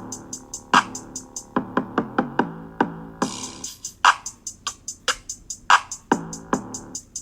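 Background music: an electronic hip-hop style beat with drum-machine hi-hats ticking about four times a second, snare hits and a synth bass line.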